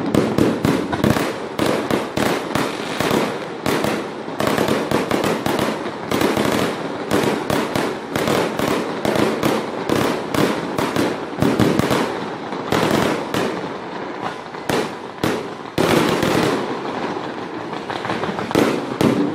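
Fireworks display going off: a continuous, dense string of loud bangs and crackles from bursting shells, overlapping one another without a break.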